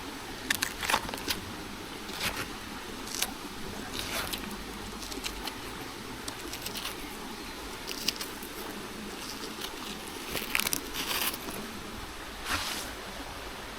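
Cut banana pseudo-stem and leaves being handled: scattered light crackles and scrapes, thicker about eight and eleven seconds in.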